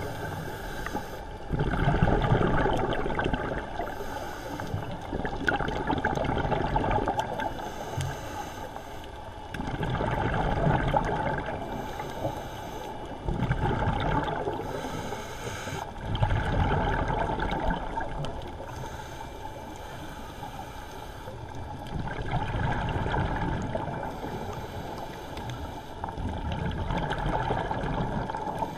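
Scuba breathing heard underwater: the regulator's exhaled bubbles gurgle out in surges every few seconds, in a slow, regular breathing rhythm.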